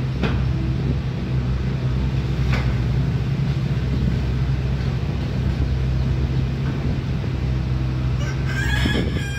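Steady low drone of a mini amphibious excavator's diesel engine running at constant speed, with a couple of faint knocks and a brief high-pitched sound near the end.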